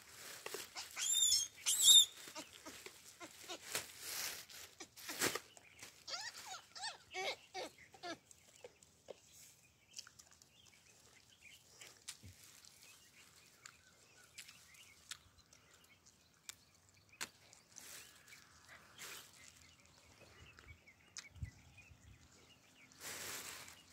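Hamadryas baboons calling: a loud burst of high-pitched squeals about two seconds in, then a run of short calls a few seconds later. Long quieter stretches follow, with scattered small clicks.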